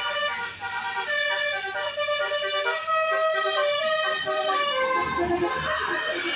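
Bus 'telolet' multi-tone air horn playing a melody, several pitched tones sounding together and stepping from note to note. A low rumble comes in about five seconds in.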